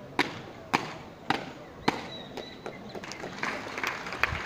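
Four loud boot stamps on a paved parade ground, evenly spaced about half a second apart, as border guards march in a drill parade, followed by lighter, quicker footfalls and scuffs.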